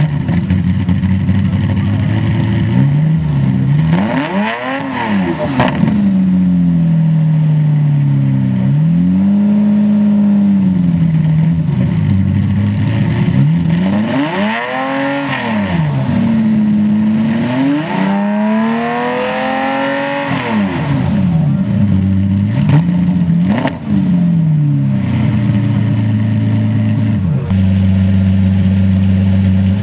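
Lamborghini Murciélago V12 idling and revved again and again in short blips that rise and fall in pitch, with one longer rev held and wavering for a few seconds around the middle.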